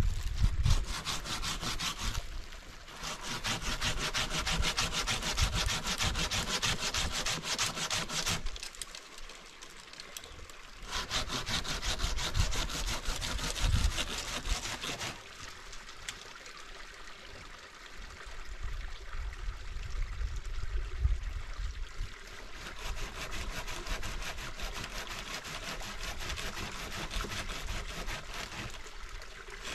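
Hand saw cutting through a dry tree branch in quick, even strokes. There are two long loud runs of sawing, from about two seconds in and again from about eleven seconds in, and the sawing is quieter after that.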